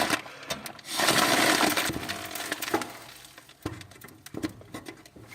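A puff of air rushing through the inflation tube into a chimney balloon, a hiss lasting about a second and a half, followed by crinkling and clicking from the balloon's plastic and its tube.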